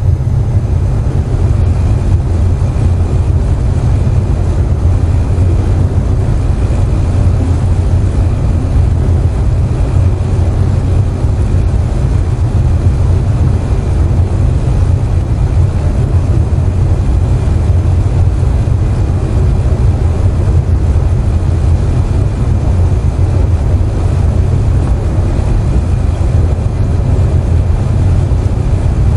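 Air conditioner running with a steady low hum, blended with the even hiss of falling rain. A faint high tone sits above the mix.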